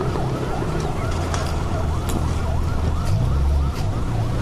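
Emergency vehicle sirens yelping, more than one overlapping, each rising and falling a few times a second, over a steady low rumble.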